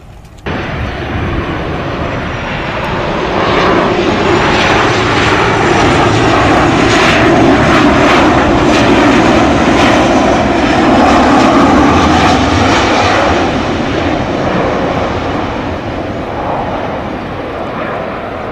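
Boeing jet airliner's engines, loud and noisy. The sound cuts in abruptly about half a second in, swells to its loudest through the middle as the plane passes low on its landing approach, then slowly fades as it touches down.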